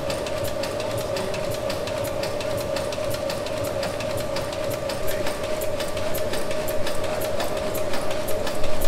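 1904 Sulzer tandem-compound steam engine running and driving its flywheel generator: a rapid, even clicking and ticking over a steady hum, getting louder near the end.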